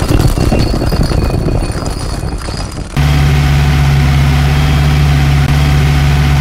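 Engine sound effect: a noisy, uneven stretch, then about three seconds in an abrupt change to a steady, deep engine hum at idle.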